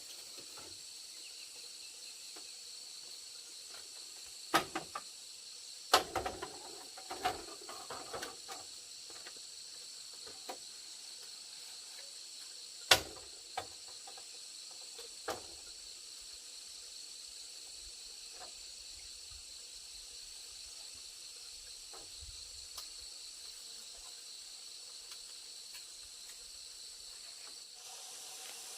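A steady high-pitched insect chorus, with a handful of sharp knocks and clicks scattered through the first half; the loudest knock comes about 13 seconds in.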